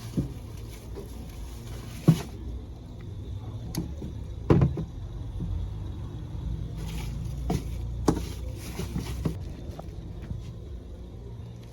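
Packaged meat portions and plastic containers being put into a refrigerator: irregular knocks, bumps and plastic handling noises, a few sharper ones, over a steady low hum.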